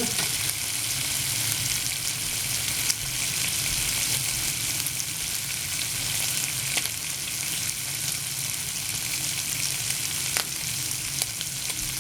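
Bacon rashers frying in a pan: a steady sizzle with occasional sharp crackles of spitting fat.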